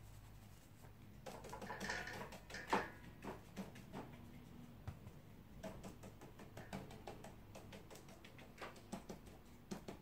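Light brushing and dabbing of a wide flat hake watercolour brush, first in a metal palette tin and then on paper, with a soft rustling stretch early on and scattered small clicks and taps.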